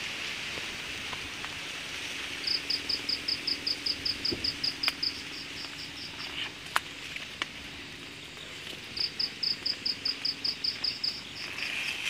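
Night insects calling: one gives two series of rapid, evenly spaced high chirps, about seven a second for some two and a half seconds each, over a steady high insect hiss, with a few sharp clicks between.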